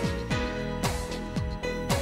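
Instrumental background music with a steady beat of about two strokes a second, a deep drum dropping in pitch on each stroke under held tones.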